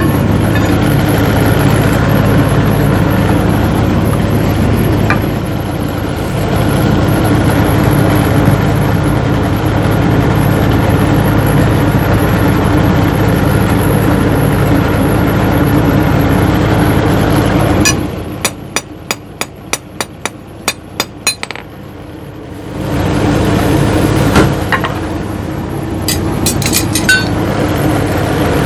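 Forge blower motor humming steadily. It stops about two-thirds of the way through, and while it is off about a dozen light metallic taps come roughly three a second. The hum then starts again, with a few more taps near the end.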